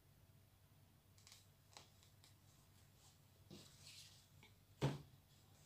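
Faint rustling and light clicks of fabric being handled and pinned: a folded printed fabric band is moved and fixed in place. One sharper tap stands out about five seconds in.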